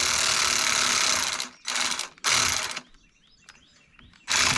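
Ratchet wrench clicking as it runs down the carburetor mounting nuts on a Troy-Bilt four-stroke edger engine: a long run of rapid clicking, then two short runs, and one more brief run near the end, with a few faint ticks between.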